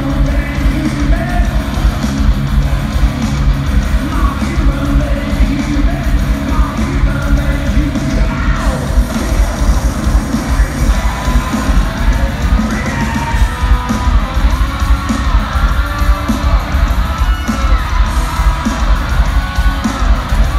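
Live heavy metal band playing loud, with heavy drums and distorted guitars under a singer's shouted vocals. The sound is the dense, reverberant mix of a big arena heard from the audience.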